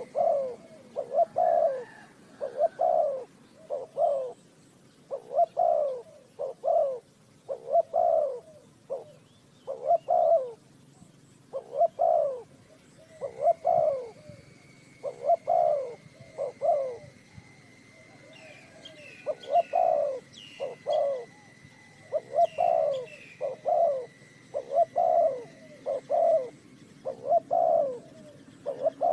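Dove cooing: a long run of low, separate coo notes, about one a second with short pauses between groups.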